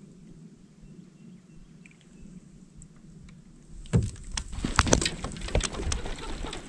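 Quiet lakeside air with a low hum for about four seconds. Then a loud, irregular run of rustling and sharp knocks as the angler moves, raises his rod and handles gear in the plastic kayak, with clothing rubbing close to the chest-mounted microphone.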